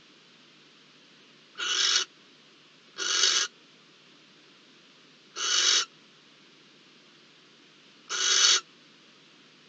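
Barn owl giving four short, harsh hissing calls, each about half a second long, spaced a second or two apart.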